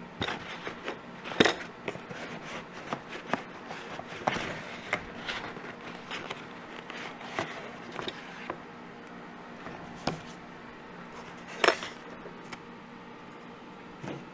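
Handling noise from unpacking a cardboard box: scattered clicks, knocks and rustles as foam packing, cardboard and bagged parts are moved, with a sharper click about a second and a half in and another near the end.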